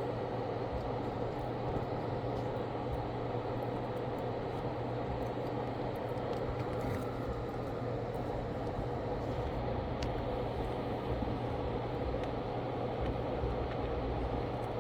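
Steady fan noise, an even whirring rush of air over a low hum, with a few faint ticks.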